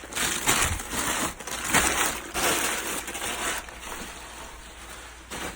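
Packaging being handled and pulled apart by hand: irregular crinkling and rustling that grows sparser and dies down over the last couple of seconds.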